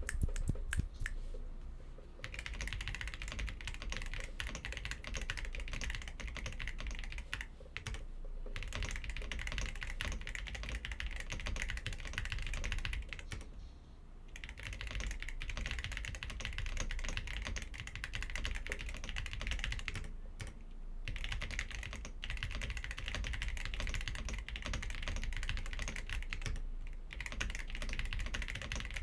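Fast, continuous typing on a Vortex Series Mono 87 V2 mechanical keyboard with factory-lubed Outemu Silver switches in a gasket-mounted plastic case, broken by a few short pauses.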